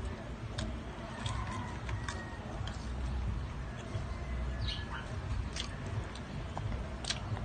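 Someone eating freshly picked green mango: scattered sharp crunches and clicks of chewing and of the slices being dipped in a small bowl, over a low steady rumble. A faint bird chirp about two thirds of the way in.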